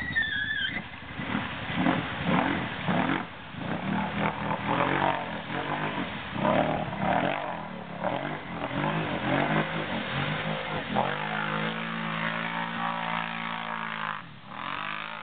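Arctic Cat ATV engine revving up and down over and over, then held at a steady speed for a couple of seconds before dropping and revving again near the end. A brief high squeal falls away right at the start.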